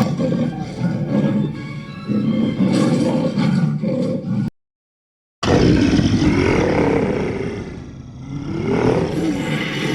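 Dragon roar sound effects, two in a row with a second of silence between them. The second roar sinks in pitch and loudness and then swells back up.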